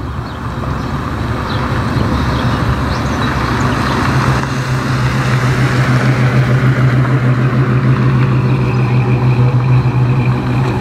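A first-generation Pontiac Firebird convertible's V8 exhaust rumbling steadily as the car drives slowly past at low speed. The low note grows louder about four seconds in.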